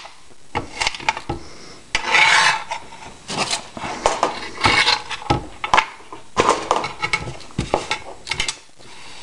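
Chef's knife dicing raw rutabaga on a clear cutting board: a series of sharp knocks as the blade strikes the board, and several short scrapes as the blade is drawn across the board to gather the diced pieces.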